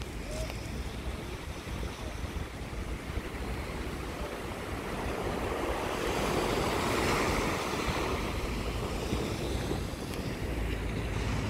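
Small sea waves breaking and washing up onto the beach. The surf swells to its loudest about six to eight seconds in.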